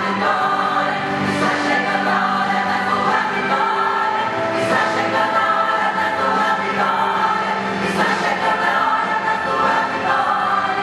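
A choir of women singing a gospel hymn together in sustained, steady phrases.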